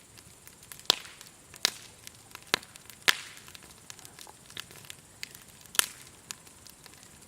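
Burning firewood crackling: irregular sharp pops and snaps, a few loud ones among many small ticks.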